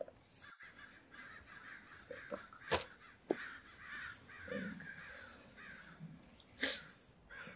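Crows cawing over and over, fairly quiet, with a couple of sharp clicks, one about three seconds in and one near the end.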